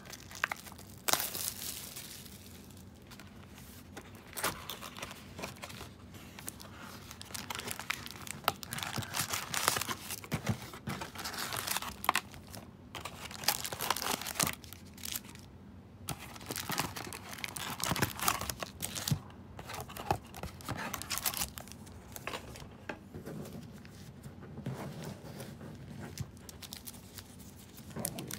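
A trading-card hobby box being torn open, then its foil card packs crinkling as they are handled: irregular rustling and tearing.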